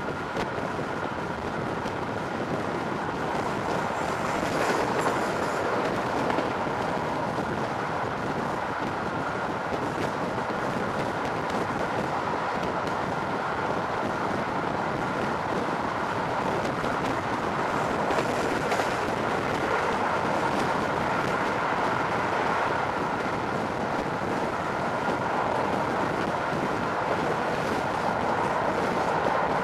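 Passenger train running at speed, heard from a coach window: a steady rush of wheels on the rails and air going past, with a faint steady whine. The sound grows brighter for a moment twice, about four seconds in and again past the middle.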